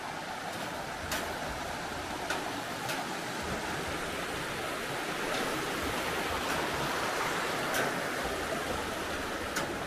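Rocky mountain river rushing over rapids below a footbridge, a steady rush of water. A few light footstep taps on the bridge's metal grating sound over it.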